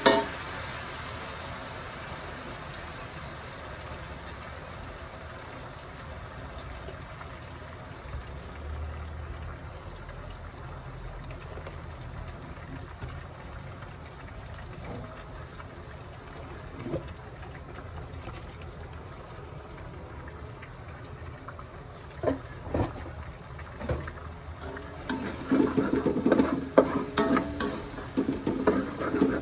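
Chopped garlic and red onion sizzling in oil in an aluminium wok, a steady hiss with a few scattered knocks. Near the end a metal spatula stirs and scrapes against the wok in a run of quick clattering strokes.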